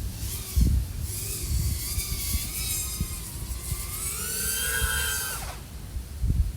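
iFlight AOS 3.5 V5 FPV quadcopter's brushless motors (XING 1504 3100KV) and 3.5-inch props whining, the pitch rising and falling with the throttle, with low buffeting underneath. About four seconds in the whine climbs in a long sweep, then drops away sharply about a second and a half later.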